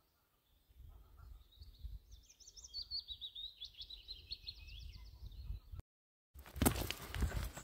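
A small songbird singing a rapid trilled song over a low rumble. After a cut near the end, close footsteps crunching on a gravel path.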